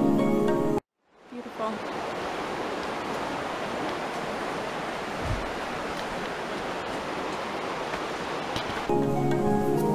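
River water rushing steadily over rocks and a small rapid, with one brief low bump about five seconds in. Background music plays for the first second and comes back near the end.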